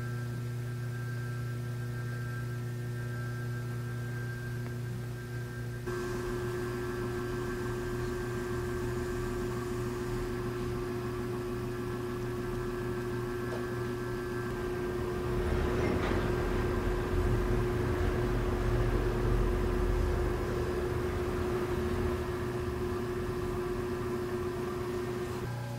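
Steady electrical hum with several fixed tones. From about 15 to 22 seconds a louder, rough low rumbling noise rises over it.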